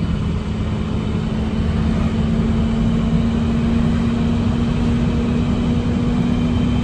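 2012 International diesel bucket truck driving at a steady speed, heard from inside the cab: the engine holds a steady drone at one pitch over low road and tyre rumble.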